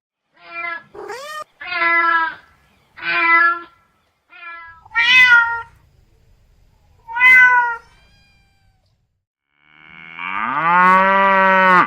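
Cat meowing repeatedly: about seven short meows, some rising and some falling in pitch. Near the end comes one longer, lower, drawn-out call.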